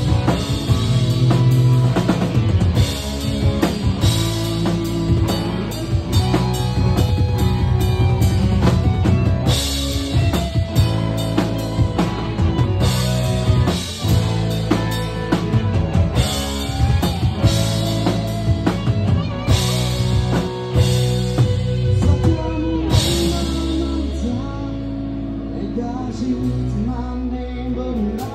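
Live rock band playing: distorted electric guitars, bass and a drum kit, with cymbal crashes every few seconds. The cymbals drop out near the end and the band carries on more quietly.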